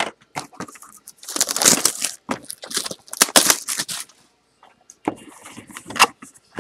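Plastic shrink-wrap being torn and crumpled off a cardboard trading card box in a run of rustling, tearing noise. Near the end come quieter handling sounds and a sharp snap as the box's top flap is opened.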